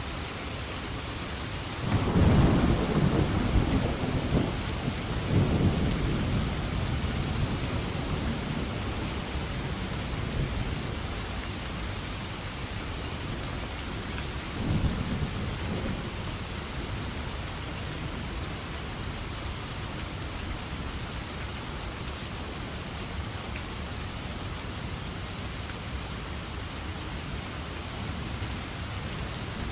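Steady rain falling, with thunder. A loud thunderclap about two seconds in rolls on and fades over several seconds, and a shorter rumble follows about halfway through.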